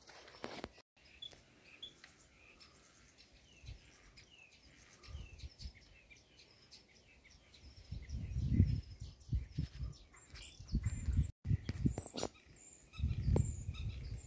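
Small songbirds chirping and singing throughout, short high chirps again and again. Several low rumbles on the microphone come and go, the loudest about eight seconds in.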